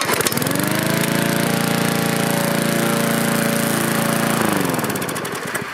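Push lawn mower's small engine revving up over about a second, running steadily at full speed for about three seconds, then slowing down near the end.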